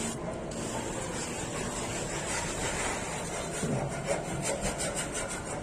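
Sponge float rubbing over fine-grain fibre-reinforced skim plaster, a steady scraping hiss whose back-and-forth strokes grow more distinct near the end.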